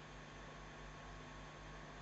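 Faint room tone: a steady hiss with a low electrical hum.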